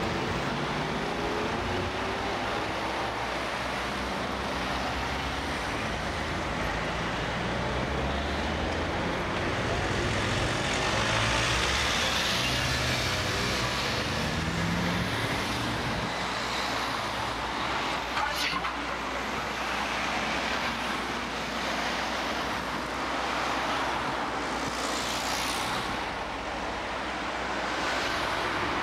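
Traffic on a city street: a steady wash of passing vehicles, with engine hum and a rising motor tone through the first half. A single sharp click comes a little past halfway.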